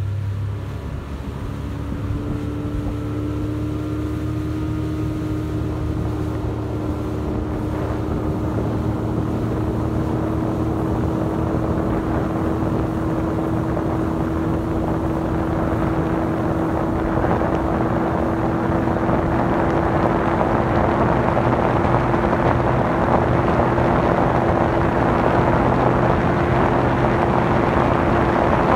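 Bass boat's outboard motor running under way. Its pitch rises over the first couple of seconds and then holds steady at cruising speed. A rush of wind on the microphone grows steadily louder as the boat runs on.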